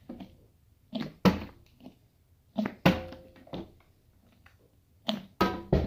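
Partly filled plastic water bottle being flipped and landing on a glass-topped table: a series of sharp thuds, one about a second in, one near the middle and two in quick succession near the end.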